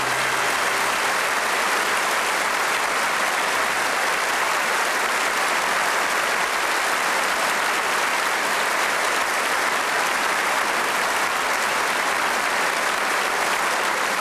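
Large audience applauding, a dense, steady clapping. The band's last low notes die away in the first second.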